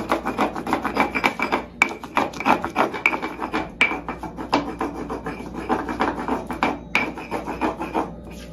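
Garlic being ground in a stone molcajete: the stone pestle scraping and grinding against the volcanic-stone mortar in rapid, rhythmic strokes, with a few brief pauses.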